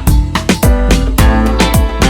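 Background music with a steady, driving beat and a deep bass drum.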